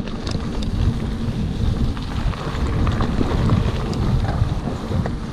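Wind rumbling on the microphone of a bike-mounted camera as a mountain bike rolls along a gravel track, with tyre noise on the gravel and scattered small clicks and rattles from the bike.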